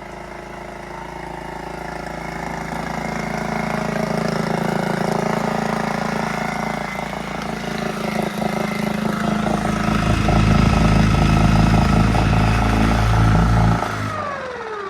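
5 hp four-stroke Shakespeare outboard motor (a Yamaha clone) running, growing louder as it is throttled up. Near the end the revs fall away and it quiets.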